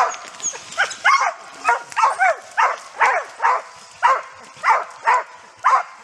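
Bear hounds barking over and over, about two barks a second, each bark dropping in pitch: the dogs baying at a bear they have treed.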